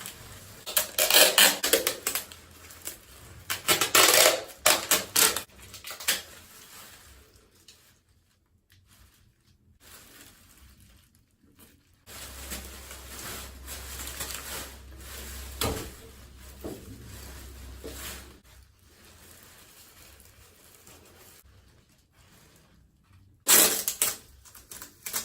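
Plastic crackling and rustling in a few loud bursts: near the start, around four seconds in, and near the end, with quieter handling between.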